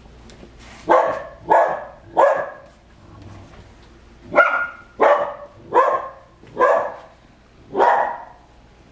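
Dog barking repeatedly, about eight short barks at uneven intervals with a pause around the middle.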